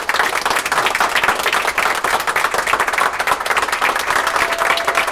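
Steady applause from a group of people clapping by hand, dense and loud throughout.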